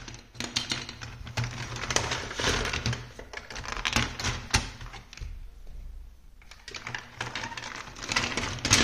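Hard plastic building blocks and marble-run pieces clattering and clicking against each other as a hand rummages through a pile of them, easing off briefly a little past halfway before picking up again.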